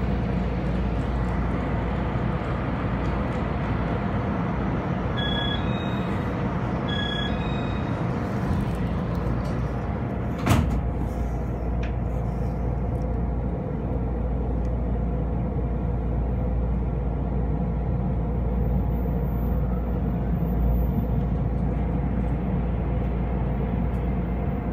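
Steady hum and rumble inside a Taiwan Railway EMU500 electric commuter train standing at the platform. Two short electronic beeps come about five and seven seconds in, and a single sharp knock follows about ten seconds in.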